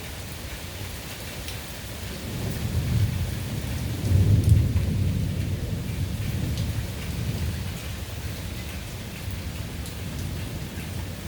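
Steady rain falling, with a rumble of thunder that builds about two seconds in, peaks near the middle and slowly fades away.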